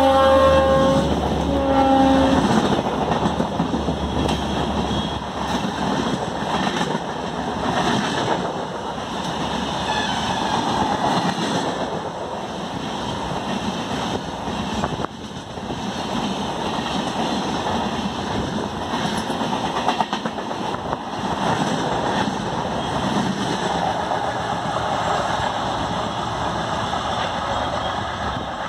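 Locomotive horn sounding twice in the first couple of seconds, then the coaches of an express train hauled by a WAP-4 electric locomotive running past at speed in a long, steady rush of wheel and rail noise.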